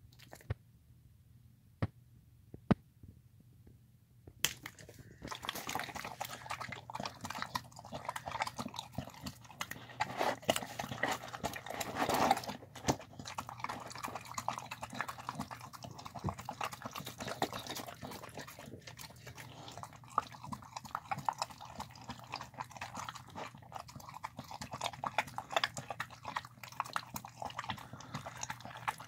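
A dog eating soft, wet food from a bowl: fast, uneven chewing, smacking and lapping that starts about four seconds in, loudest around the middle.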